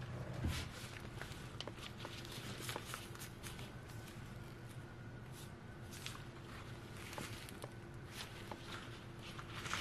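Soft rustling and small scuffs of a cleaning cloth being handled in rubber-gloved hands, with scattered light ticks over a faint steady hum.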